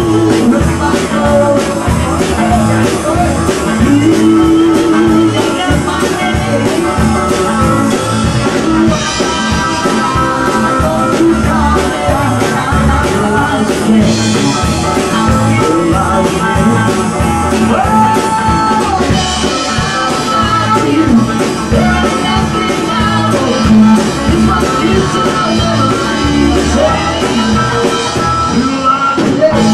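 Live country-rock band playing loudly: electric guitars, bass, drums and keyboards, with singing over the top.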